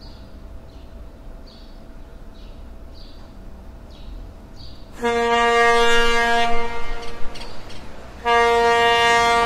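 Factory steam hooter blowing: a loud, steady pitched blast starts about five seconds in and lasts nearly three seconds, then a second blast starts just after the eight-second mark. Before it there is only a low rumble with faint, repeated high chirps.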